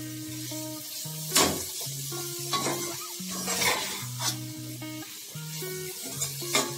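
A metal spatula stirs diced potatoes and masala in a metal pot, sautéing them with a sizzle and several sharp scrapes against the pot. Background music with steady held notes plays underneath.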